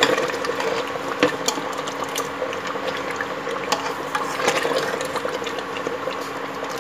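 Steel ladle stirring mutton gravy in an aluminium pot, scraping and clicking against the metal sides at scattered moments. A steady mechanical hum runs underneath.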